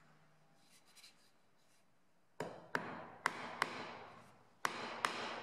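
Small nails being struck into a pine board: seven sharp, ringing taps about two and a half seconds in, four close together and then three more.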